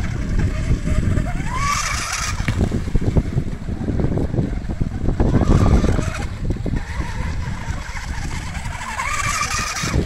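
Fast radio-controlled electric boat's motor and propeller whining, the pitch rising sharply as it speeds up, about two seconds in and again near the end, over heavy wind rumble on the microphone.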